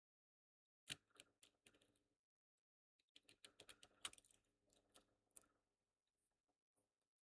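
Faint clicking and tapping of small plastic and metal laptop parts as a Dell laptop's cooling fan is worked loose and lifted out. The clicks come in two short flurries, about a second in and again from about three to six seconds in.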